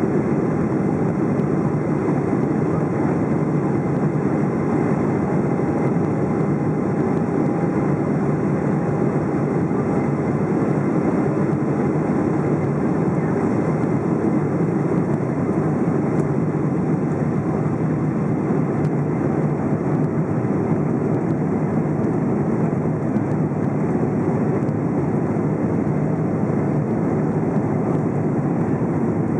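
Cabin noise of a Boeing 777-200 heard from a seat over the wing during the takeoff roll and liftoff: a steady, loud rush of engine and air noise at takeoff thrust. A faint high tone over it fades out about a third of the way in, and a slightly lower one comes in around halfway.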